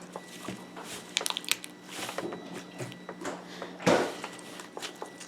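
Sticky, overactivated slime being handled and stretched by hand, giving scattered small crackles and clicks, with a louder pop about four seconds in.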